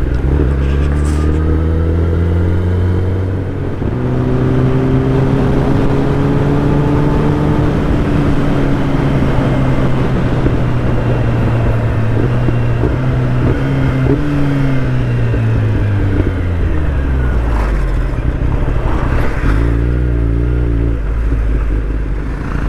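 Motorcycle engine running under way, with steady wind and road rush. Its pitch drops about four seconds in, climbs again, and falls away after about fifteen seconds as the bike slows.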